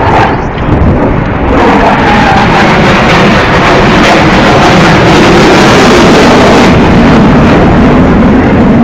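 Loud, steady roar of Eurofighter Typhoon jets, swelling about a second and a half in and overloading the phone's microphone, after a short bang at the very start.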